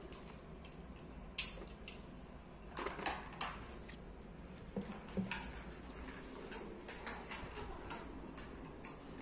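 Handling noise: a few light clicks and knocks as small objects and paper are handled, bunched about 1.5, 3 and 5 seconds in, over a faint steady background hum.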